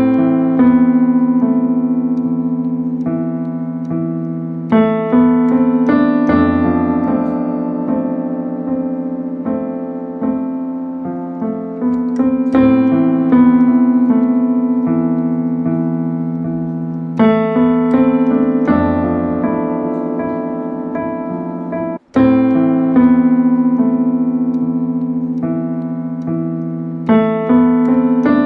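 Instrumental piano music: slow sustained chords struck and left to fade, changing every second or two. The sound breaks off for an instant about 22 seconds in.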